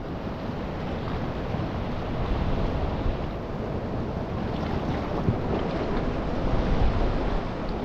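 Steady wind buffeting the microphone, with the sea washing against the rocks beneath it.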